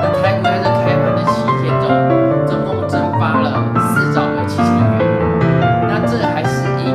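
Background piano music, a steady run of notes, with a man's voice talking underneath.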